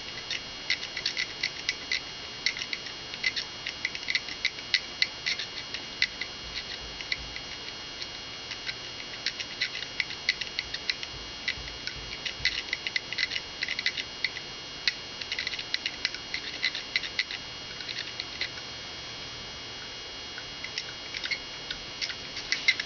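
X-Acto knife blade scraping small leads on a circuit board: irregular bursts of light, scratchy ticks, with short pauses where the scraping eases off.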